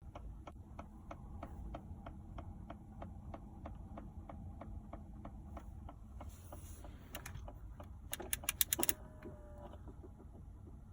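Faint, regular ticking from behind the dashboard of a Volkswagen Golf Mk5, about three ticks a second, which stops about six seconds in. A burst of louder, rapid clicks follows about eight seconds in.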